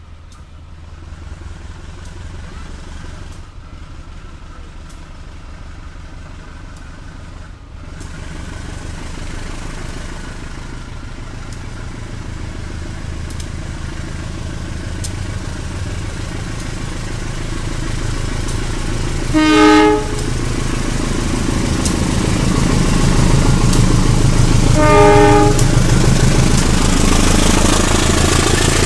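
Joglosemarkerto passenger train approaching and passing: the diesel locomotive's rumble grows steadily louder, with two short horn blasts, the first about two-thirds through and the second about five seconds later. Near the end the coaches roll past close by, their wheels rushing on the rails.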